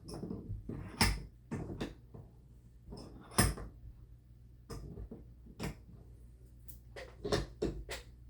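Irregular clicks and knocks of metal being handled as a pistol slide is set between a portable vise's magnetic jaws and clamped, with the loudest knock about three and a half seconds in.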